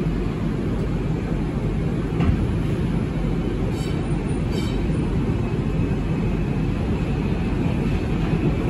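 Steady low rumble inside a New York City Subway car as the train pulls out of the station, with a few faint clicks about two and four seconds in.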